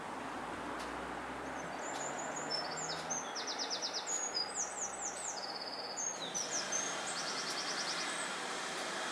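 Steady hiss of steam escaping from GWR 42xx 2-8-0 tank locomotive No. 4247 standing in steam. Over it a small songbird sings runs of rapid high trills and chirps from about a second and a half in until near the end.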